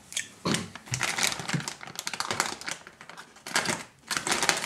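Plastic packaging rustling, with quick irregular clicks and taps, as RC crawler wheels are unpacked and handled.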